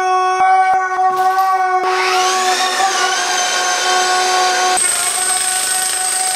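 A steady pitched hum runs under a rushing noise that swells about two seconds in. About five seconds in, an electric chipping hammer with a chisel bit starts hammering, breaking up travertine floor tile.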